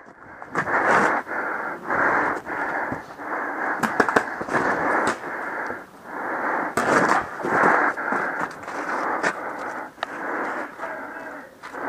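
Two-way radio static hissing and crackling, surging and fading every half second to a second, with scattered sharp clicks over it.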